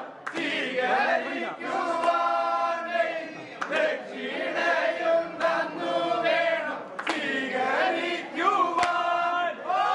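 A group of voices singing or chanting together in chorus, in long held phrases, with a sharp beat about every one and a half to two seconds keeping time.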